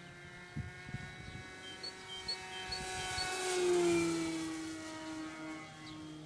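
RC pattern airplane's motor and propeller running at steady power as it flies past, growing louder to a peak about four seconds in and then dropping in pitch as it moves away.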